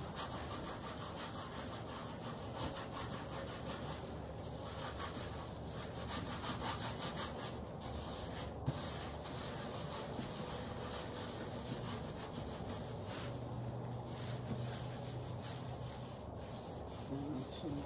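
Gloved fingers rubbing and smearing wet acrylic paint across a large stretched canvas, in continuous back-and-forth strokes that blend the black into the blue. A single sharp tick sounds about halfway through.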